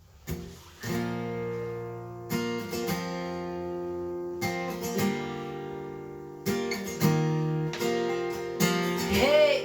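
Acoustic guitar strumming the intro chords. Each chord is struck in pairs of strums about every two seconds and left to ring.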